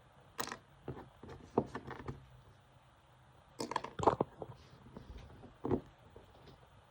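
Small plastic toy pieces and packaging being handled: a scatter of short clicks and taps, loudest in a quick cluster a little past the middle.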